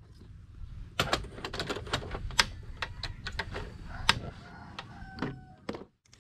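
Irregular sharp clicks and clatter of an aluminium mess tin, its lid and folding wire handles, being handled and set on the grate of a portable butane gas stove.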